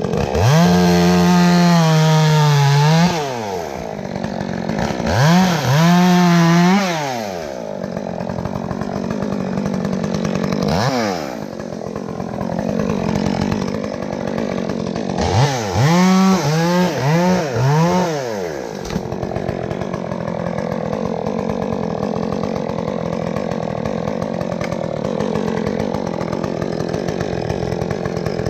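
Two-stroke chainsaw revved up and back down several times, with four quick throttle blips in a row about halfway through. It runs at a steady idle between the revs.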